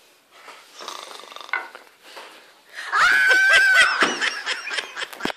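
A loud, high-pitched squeal held for about a second around three seconds in, followed by bursts of laughter.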